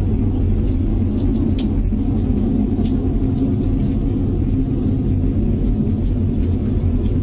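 A deep, steady rumbling drone with no clear source, the kind of unexplained sky noise reported as 'strange sounds'. It sounds close by.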